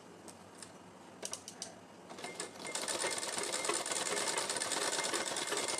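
Sewing machine stitching a trim patch onto cotton fabric: a few separate stitch clicks in the first two seconds, then a steady, fast run of stitching from about two seconds in.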